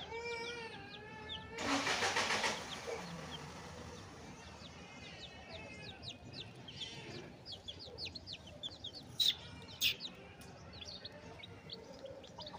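Chicks peeping in many short high chirps while feeding, with two sharper, louder sounds about nine and ten seconds in. About two seconds in, a loud rushing noise lasts roughly a second.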